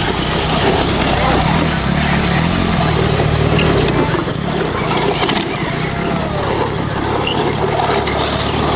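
Spectators' voices mixed with the steady running of 1/10-scale electric RC crawler trucks driving over dirt and rock.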